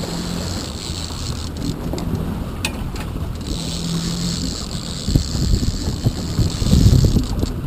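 Boat engine running steadily at trolling speed, under a hiss of the wake, with wind buffeting the microphone, heavier from about five seconds in.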